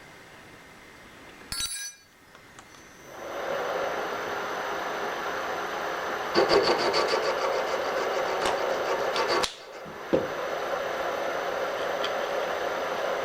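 A short clatter, then a metalworking machine tool starts and runs steadily. For about three seconds in the middle it gets louder with a fast, rattling cut. It cuts off abruptly, then starts again with a sharp click and runs on.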